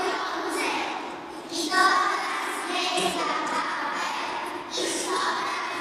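A group of young children singing together, phrase by phrase with short breaks between.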